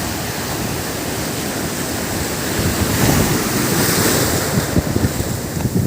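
Atlantic Ocean surf breaking and washing on the shore, with wind buffeting the microphone; the surf swells louder about three seconds in.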